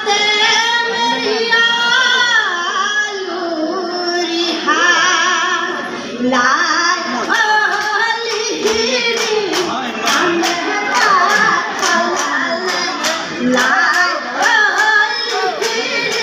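Women singing a Jeng Bihu song in chorus. From about six seconds in, a steady clapping beat joins at about two claps a second.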